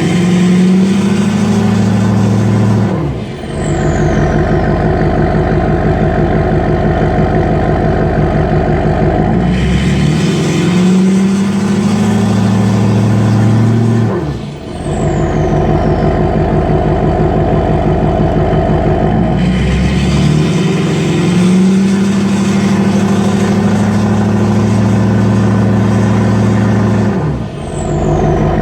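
LMM Duramax 6.6 L V8 turbodiesel on a 5-inch straight pipe with a 63.5 mm billet-wheel turbo, revved and held high for several seconds three times and let back to idle between. A loud turbo whistle runs with the revs, and each time the throttle drops it falls in pitch as the turbo spools down.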